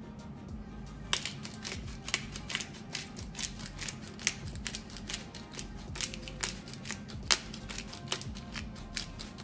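Hand-twisted black pepper grinder cracking peppercorns: a quick, uneven run of crunchy clicks that starts about a second in and stops near the end.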